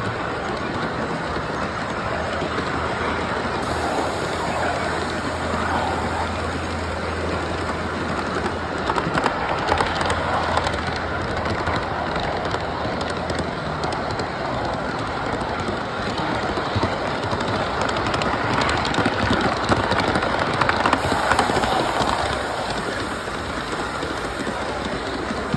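Large-scale model freight cars rolling along the track, heard from aboard the train: a steady rolling rumble of wheels on rail with scattered clicks from the rail joints.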